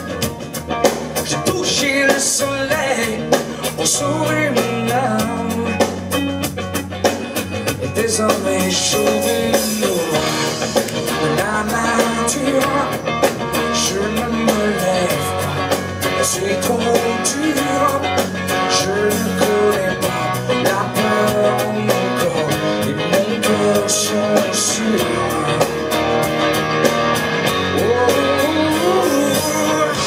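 Live rock band playing a song: strummed acoustic guitar, electric guitar, bass and drum kit, with a man singing lead.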